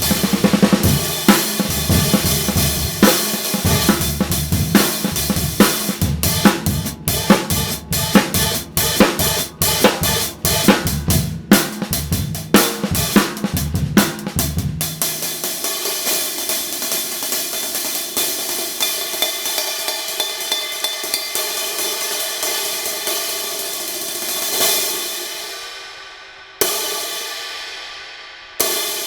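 A 16-inch paper-thin B20 bronze hi-hat pair played in a drum-kit groove with kick and snare for about the first half. The hi-hats then play alone, and near the end come a few open strikes that wash out and decay, two of them cut off sharply.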